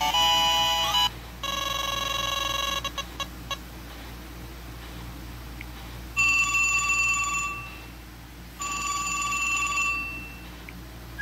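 LG Optimus F7 smartphone playing ringtones through its speaker: a short electronic melody ends about a second in, then a steady electronic ringing tone sounds in three bursts of roughly a second and a half each, with pauses between.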